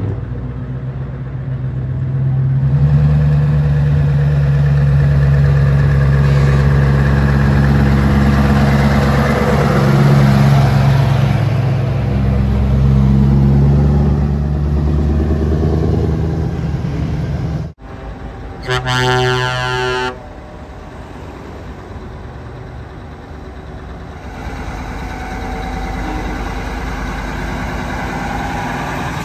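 Scania V8 truck engines on open exhaust pipes running loud as the trucks pull away, the pitch rising and falling as they rev. A truck horn blasts for about a second and a half just past the middle, and engine sound picks up again near the end.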